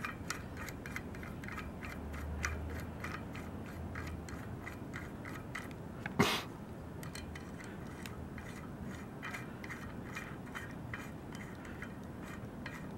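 Small metal ticks and clicks as the cone nut and lock nut are threaded by hand onto a bicycle hub axle, with one louder click about six seconds in.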